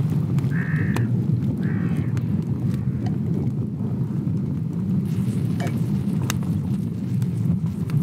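Steady low wind rumble on the microphone, with two short harsh animal calls in the first two seconds.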